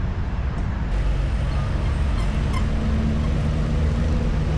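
Road traffic: a steady low rumble of passing vehicles, with one engine's hum growing stronger and more distinct from about two seconds in.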